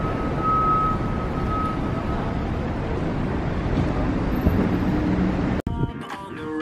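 Downtown city traffic noise, a dense steady rumble, with a faint high tone coming and going in the first couple of seconds. It cuts off abruptly near the end and background music starts.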